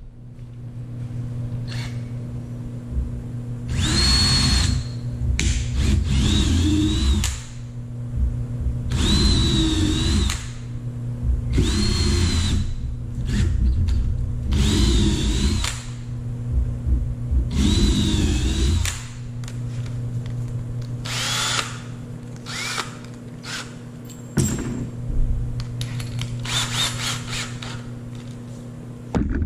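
Cordless drill running into a wooden block in repeated bursts, each a second or so long, its motor whine sagging under load and picking up again. Shorter, lighter bursts follow near the end.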